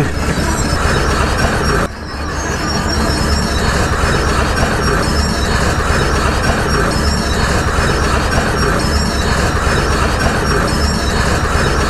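Tracked excavator moving close by: its diesel engine running steadily while the steel tracks clank and squeal, with a brief lull about two seconds in.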